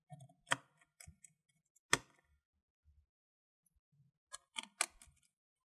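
Replacement battery pack being slid and seated into the bay of a Dell Latitude E7470 laptop: a few scattered light clicks and taps of plastic against the chassis, the sharpest about two seconds in, and a quick run of clicks a little past four seconds.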